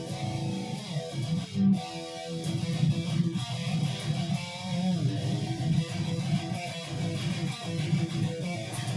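Guitar playing a run of notes and chords.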